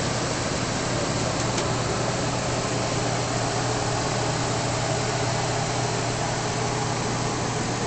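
Steady hiss of a running fan with a low, even drone beneath it.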